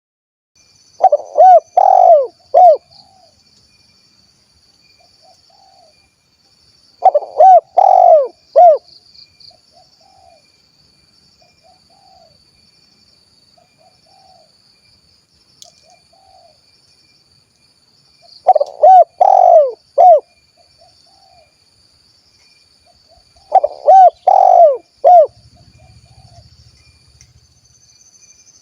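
Spotted dove (tekukur) cooing in the 'kuk 1' style: four loud phrases, each a quick run of five or six short coo notes, with fainter single coos in between. A faint steady high-pitched tone runs behind the song.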